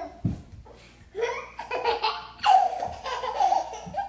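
Children laughing in two long bursts.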